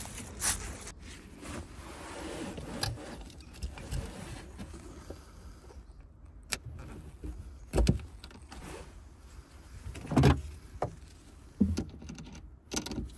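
Footsteps, then a few sharp clicks and knocks as the negative terminal clamp is fitted onto the BMW E90's boot-mounted battery and tightened with a socket wrench. The battery is being reconnected.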